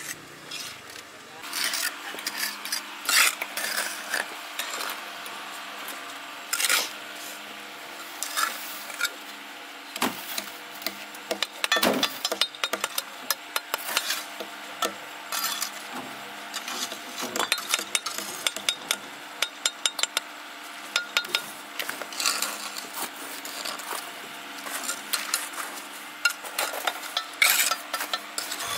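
Irregular scrapes, clinks and knocks of hand work with metal tools or utensils on a hard surface, over a faint steady hum.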